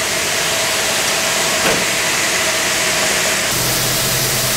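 Steady hiss-like din of stone-factory machinery running. About three and a half seconds in the noise changes abruptly and a low steady hum joins it.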